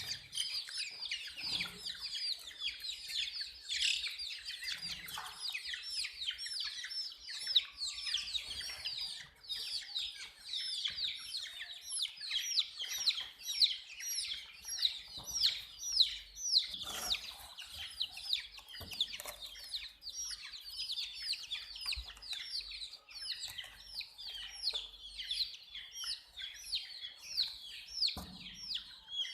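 A group of baby chicks chirping nonstop: rapid, high-pitched peeps that slide downward in pitch, several overlapping each second, with a couple of brief knocks.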